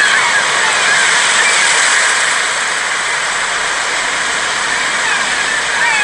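Steady hiss of sea waves washing on a beach, with a few short chirps in the first second.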